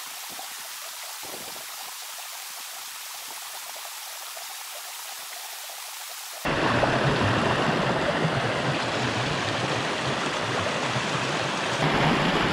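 Water rushing through a breach torn in a beaver dam: a soft hiss at first, then suddenly much louder and fuller about six and a half seconds in.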